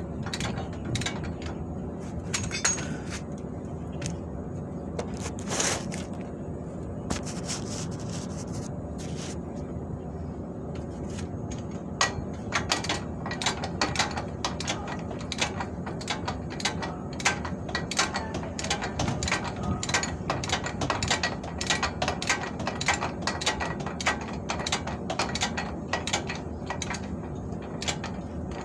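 Metal hand tools working on a vehicle's tie rod end, making a run of short clicks and clinks that comes sparse at first and grows much denser about halfway through.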